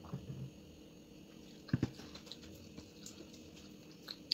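Quiet sounds of a meal: a soft swallow of juice at the start, then a sharp double click of tableware about two seconds in and another click near the end.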